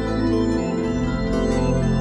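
Background music of slow, held keyboard chords over a low bass, the chords changing a couple of times.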